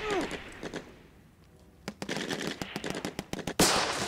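Battle gunfire from rifles and a machine gun: a run of rapid shots, a lull of about a second, then shooting resumes, with the loudest burst about three and a half seconds in.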